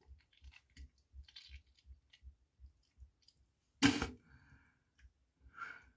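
A person retching from nausea: faint wet clicks and drips, then one sudden loud retch about four seconds in, followed by two short throat sounds.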